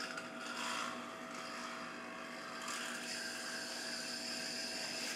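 Faint whir of a spinning bearing spin top as it runs on its string during a trick, over a steady low hum.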